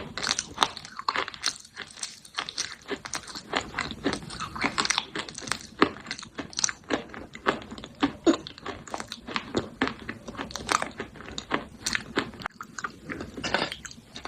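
Close-up crunching and chewing of roasted clay pot pieces (edible baked clay), with sharp crisp crunches coming several times a second as the brittle clay is bitten and ground between the teeth.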